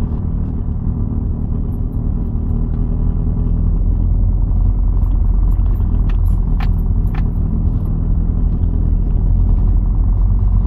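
Car engine and road noise heard from inside the cabin while driving: a steady low rumble that grows a little louder a few seconds in, with a couple of faint ticks past the middle.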